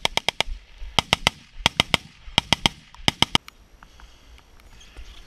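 Rapid sharp rattling clicks in short clusters, one cluster about every two-thirds of a second in step with running strides, from gear jostling on a running camera-wearer. The clicking stops about three and a half seconds in, leaving faint outdoor background noise.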